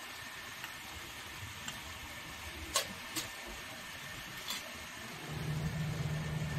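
Steady hiss with a few light clicks of a small steel bowl being handled and set down on a metal pot lid, three in all. A low steady hum comes in about five seconds in.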